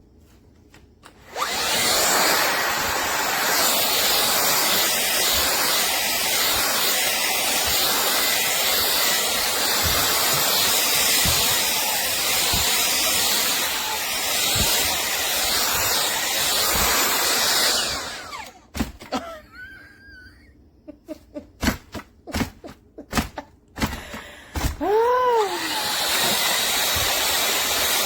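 Dreame R20 cordless stick vacuum running, a steady whooshing motor and suction. It stops about 18 seconds in, giving way to a series of knocks and clicks as it is handled, then starts running again near the end.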